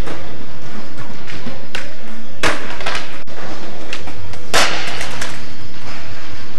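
Skateboard on a hard indoor skatepark floor: wheels rolling and clicking, then two loud clattering impacts about two seconds apart. The second comes as a kickflip attempt ends in a fall, with board and rider hitting the floor.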